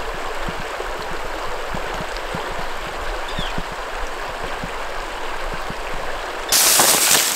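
A mountain stream rushing steadily over rocks. About six and a half seconds in, a much louder, harsher noise cuts in.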